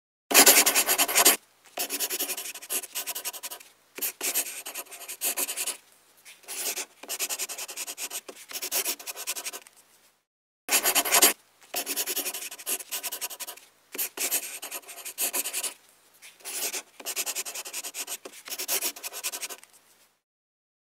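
Scribbling on paper: a drawing tool scratching in rapid strokes, in bursts of one to two seconds with short pauses between them. Fast, louder scribbles come just after the start and again about halfway through.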